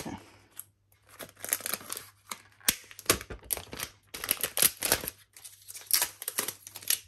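Protective plastic film being peeled off the back of a smart display, crackling and rustling in irregular bursts that start about a second in.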